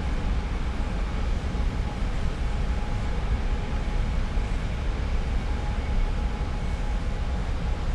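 Oil refinery plant heard up close: a steady, deep industrial rumble with a hiss over it and faint steady hum tones, unchanging throughout.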